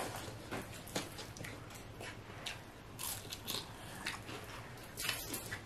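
Close-up eating sounds: biting into and chewing a fried pork egg roll (lumpia), heard as a string of short mouth clicks and smacks about every half second, with a small cluster near the end.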